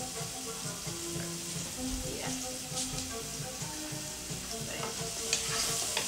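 Chopped red onion and garlic sizzling in oil in a pan. Near the end a wooden spoon stirs them, with a few clicks and scrapes against the pan.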